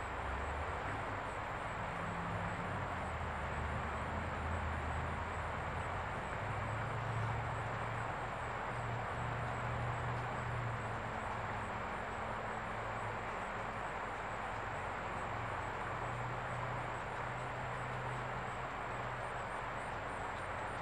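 Distant diesel locomotive engine running, a low rumble that drifts up and down in pitch. Under it, steady high insect calls pulse about twice a second over a broad outdoor hiss.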